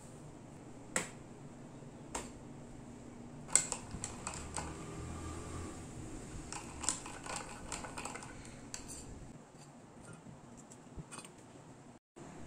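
Quiet tabletop handling: a couple of single knocks, then from about three and a half seconds in a run of clicks and light clinks as a clear straw stirs a drink in a stainless-steel-rimmed insulated tumbler.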